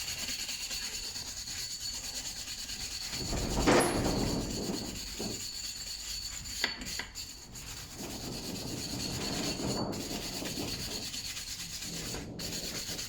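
Hand wire brush scrubbing rust off the hub's disc mounting face, a continuous rasping scratch of rapid back-and-forth strokes, loudest about four seconds in. The rust has to be cleaned off so the new disc sits on a smooth surface.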